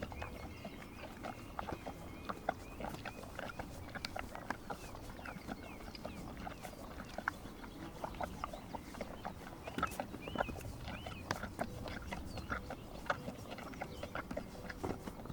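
Horses licking and mouthing a salt block: irregular wet smacks and clicks, several a second. Faint bird chirps run underneath.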